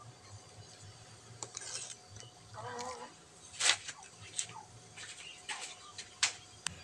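Faint scattered knocks and clinks of a plastic strainer and utensils against a metal cooking pot, with a short wavering call about two and a half seconds in.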